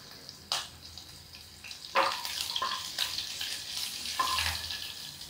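Cumin seeds and sliced green chillies sizzling in hot oil in a non-stick kadhai: the tempering stage of the frying. A wooden spatula stirs them, knocking against the pan a few times.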